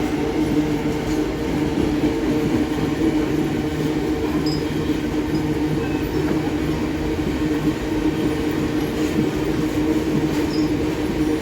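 Loaded iron-ore freight train passing at close range: a steady rumble with a held, even droning tone.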